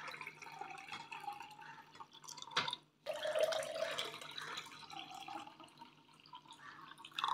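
Water poured from a small glass jug into two tall glasses of juice, one after the other, the pitch of each pour rising as the glass fills. A short knock comes between the two pours.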